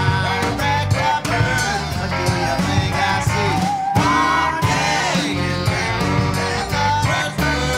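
Rock song playing, an instrumental stretch with a gliding melodic line over guitar, bass and a steady drum beat.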